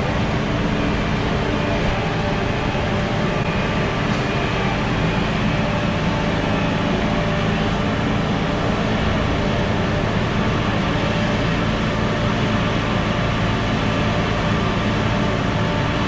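Engines of heavy boatyard machinery running steadily: a gantry travel lift carrying a yacht, with a forklift working close by. An even engine drone that holds the same pitch throughout.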